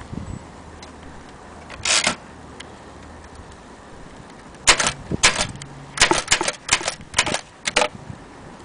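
Keys of a vintage Imperial Companion typewriter striking: one short burst about two seconds in, then a run of about a dozen uneven keystrokes through the second half.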